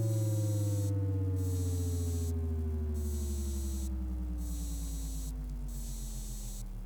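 Synthesized spinning sound effect winding down: a low, many-toned pitch falls steadily and slowly fades, with a pulsing wobble that gets slower as it drops. A high hiss cuts in and out every second or so.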